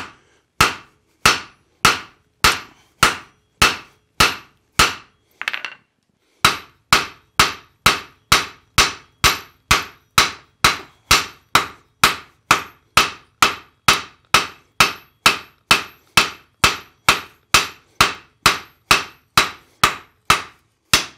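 Rounding hammer striking red-hot iron on an anvil face, spreading the ladle's bowl into a flat round disc. Each blow is a sharp metallic strike with a brief ring. A slower run of blows pauses about five seconds in, then picks up as a steady, faster run of about two and a half blows a second.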